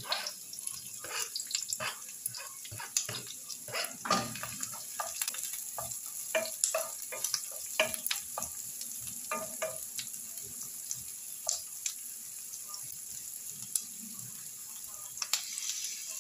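Diced onion sizzling as it fries in a nonstick frying pan, with frequent clicks and scrapes of a wooden spoon pushing and stirring the pieces.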